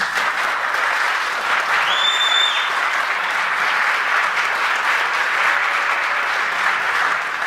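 Concert audience applauding just after a big band piece ends, a steady clapping that begins to die away near the end.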